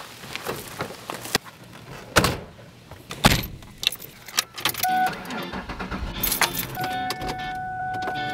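Several sharp thuds of car doors shutting, then car keys jangling as they are put into the ignition and turned to start the sedan.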